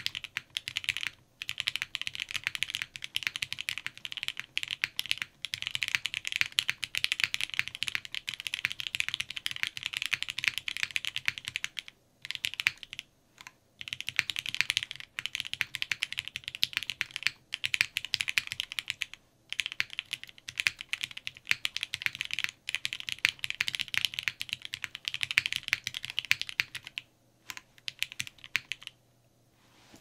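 Typing on a custom 60% mechanical keyboard, a roywerkz Integral with lubed Gateron Ink Black linear switches on a top-mounted polypropylene plate and GMK doubleshot ABS keycaps. A dense run of keystrokes with a few short pauses, thinning to a handful of stray strokes near the end.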